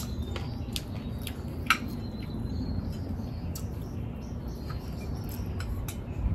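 People eating noodles: scattered short slurps and light clicks of chopsticks and spoons against ceramic bowls, over a steady low background rumble. The sharpest click comes a little under two seconds in.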